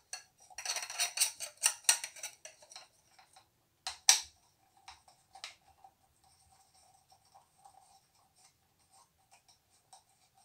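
Metal clinking and rattling from stainless-steel cylinders being handled and fitted onto a metal bar: a dense run of clicks and clinks in the first two seconds or so, one sharp clink about four seconds in, then only faint scattered ticks.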